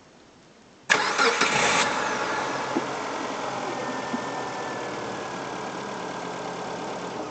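Mitsubishi 4G18 petrol engine started about a second in: a brief burst of starter cranking, then the engine catches and idles, a little fast at first and settling lower. It begins to shut off at the very end.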